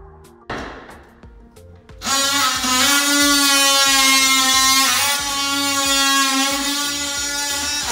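Oscillating multi-tool buzzing steadily as it cuts into interior window trim, starting about two seconds in after a few clicks.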